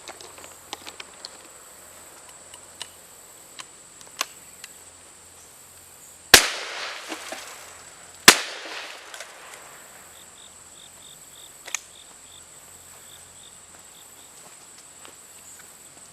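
Two shotgun blasts about two seconds apart, each with a short echo, fired at a garbage can. A few light clicks come before and one after, over a steady high insect buzz.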